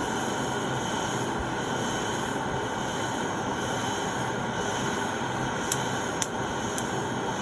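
Portable gas torch flame burning with a steady hiss while it heats a disc brake pad to burn off soaked-in oil. A few sharp ticks come about three-quarters of the way through.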